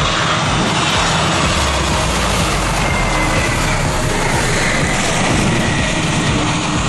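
Airliner engines, a loud, steady rushing noise with a faint high whine that drifts slightly lower in pitch midway.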